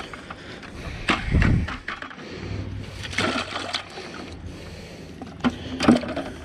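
Water splashing and sloshing in a plastic bucket as a freshly caught black crappie moves in it, in a few irregular bursts: about a second in, around three seconds in, and near the end.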